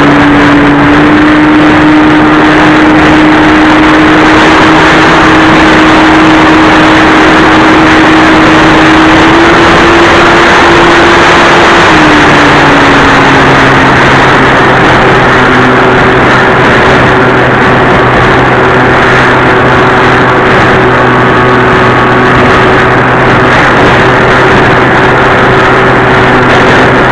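Electric motor and pusher propeller of a Multiplex Easy Star II RC glider in flight, heard close up as a steady hum over loud wind rush. The hum's pitch shifts up and then down about halfway through, and settles on a new steady note.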